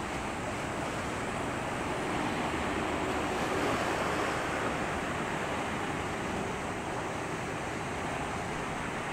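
Steady rushing of wind and water at the shore, swelling slightly a few seconds in.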